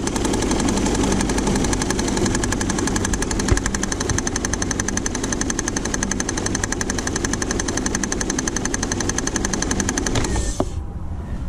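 A 2000 Saturn L300's 3.0-litre V6 running with a loud, rapid, even knocking rattle from its belt drive, which the mechanic hears as coming from the timing belt. The knocking stops abruptly about ten seconds in.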